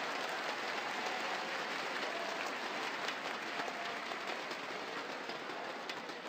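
Arena crowd applauding steadily, a dense patter of many hands clapping, as a badminton match is won.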